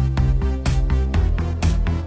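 Electronic background music with a steady beat: a strong hit about once a second, lighter ticks between, and a bass line underneath.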